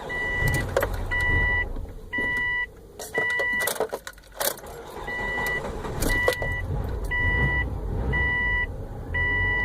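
A 2004 Subaru Forester's warning chime beeping about once a second, each beep about half a second long, with one short break near the middle. It sounds just after the engine has stalled, over a low rumble and a few knocks.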